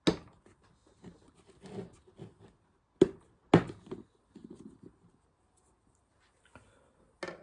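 Clip-lock plastic food container being opened by hand: a few sharp snaps of the latch tabs unclipping, the loudest near the start and two about three seconds in, with lighter plastic knocks and a short clatter as the lid is lifted off.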